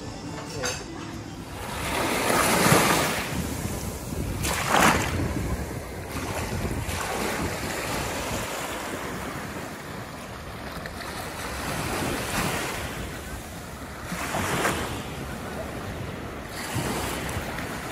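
Small sea waves washing over a rocky shore and shallow sandy water, each wash swelling and fading every few seconds, the loudest two near the start. Wind rumbles on the microphone underneath.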